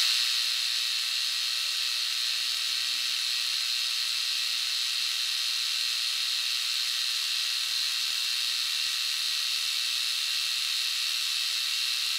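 Milling machine running steadily with an even high-pitched hiss while a quarter-inch end mill spot-faces the bosses of a brass casting.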